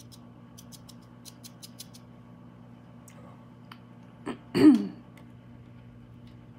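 A person clears their throat once, briefly, about four and a half seconds in. Before it there is a run of light clicks, all over a steady low hum.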